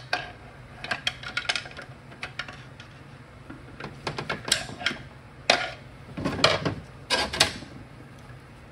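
Clutch plates being pried with a pick and pulled out of a Toyota AB60E automatic transmission case: irregular metallic clinks and scrapes, with several sharper clanks in the second half.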